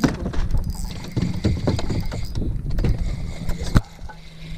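Handling noise: a jacket sleeve and hand rubbing and bumping against a body-worn camera's microphone, with irregular knocks and one sharp knock a little under four seconds in, after which it stops.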